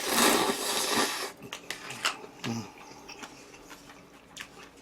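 Close-miked eating noises: a loud hissing rush for just over a second, then quiet clicks and mouth smacks.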